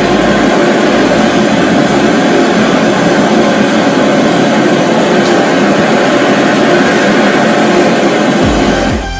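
Three propane torches burning at full flame against a knife blade, a loud steady rushing hiss that starts suddenly and drops away near the end as music comes back in.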